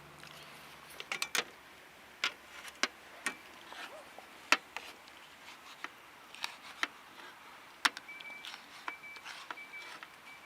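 Scattered light clicks and knocks of objects being handled. From about eight seconds in, a series of short, high, steady beeps sounds about half a second apart.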